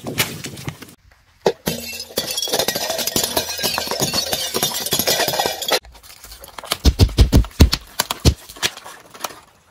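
A car tyre crushing things. There is a long stretch of crackling, crunching breakage as ceramic plates shatter under it, then a quick run of deep bursting pops as water balloons split.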